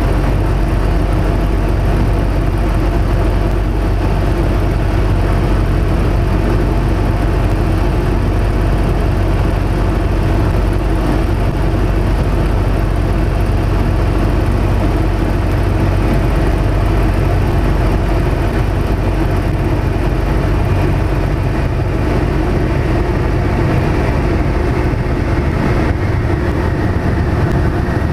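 Yak-50's nine-cylinder Vedeneyev M-14P radial engine and propeller running steadily in flight, heard from inside the cockpit. The lowest part of the engine tone thins a few seconds before the end.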